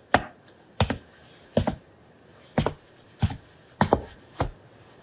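Slow footsteps of hard-soled shoes on a hard floor. There are about seven sharp, evenly spaced steps, some with a doubled click.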